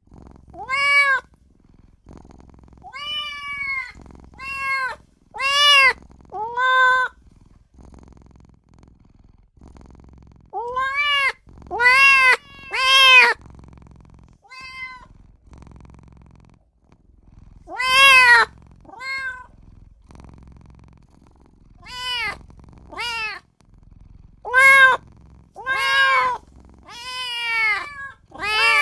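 Young kitten meowing: short, high mews that rise and fall in pitch, about eighteen in clusters of two to four with pauses of a second or more between. These are its pleading, attention-seeking cries to its owner.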